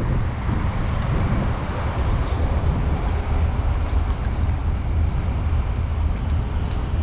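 Wind buffeting the microphone outdoors: a steady low rumble with an even hiss above it.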